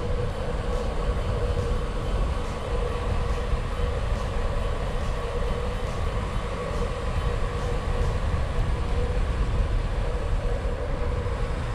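Wind rumbling on a bike-mounted action camera's microphone, with tyre noise from a bicycle rolling along a paved road. A faint steady hum and light, evenly spaced ticking run under it.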